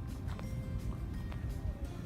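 Steady low rumble of a city bus's engine and road noise heard from inside the cabin, with occasional faint clicks and rattles.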